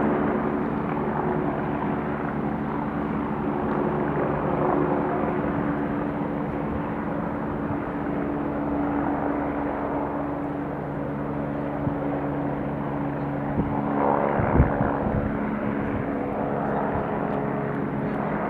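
Steady outdoor drone: a noisy rush with a low, even machine hum running through it, and a brief low thump about fourteen seconds in.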